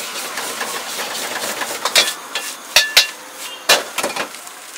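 Egg fried rice being stir-fried in a wok over a high gas flame: a steady rush of burner and sizzle, then a handful of sharp metal clangs with a short ring as the steel ladle strikes the wok, from about two seconds in.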